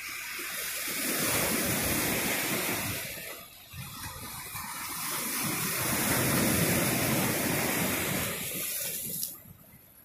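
Ocean surf breaking and washing in foam over a rocky shoreline: two surges of rushing water, the second louder, cutting off fairly suddenly near the end.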